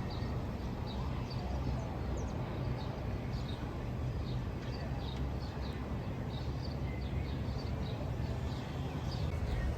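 Small birds chirping, many short high chirps a few each second, over a steady low rumble.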